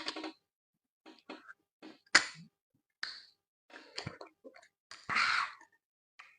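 Close-up eating sounds: short wet chewing and lip-smacking noises, with a sharp click about two seconds in and a louder half-second burst of mouth noise about five seconds in.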